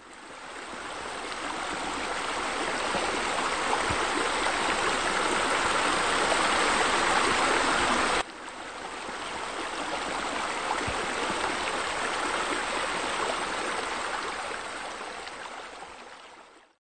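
Steady sound of running water, like a stream or water feature. It fades in, cuts off abruptly about eight seconds in, comes back fading up again and fades out near the end.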